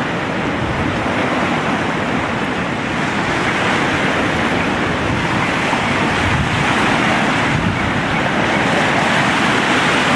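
Steady rush of a flooded river running fast over its banks, growing a little louder about three seconds in.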